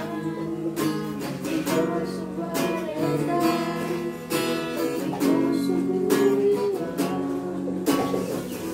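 Small acoustic guitar strummed in a steady rhythm of chords, with a voice singing along.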